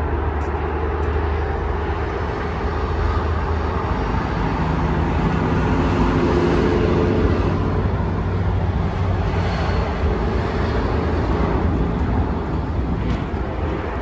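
Steady road traffic noise from a highway, with a louder vehicle passing about halfway through.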